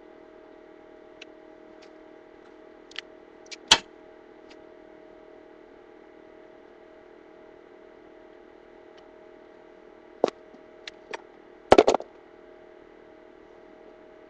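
Scattered clicks and knocks of tools and parts being handled during bike rack installation, with the loudest cluster about twelve seconds in, over a steady hum.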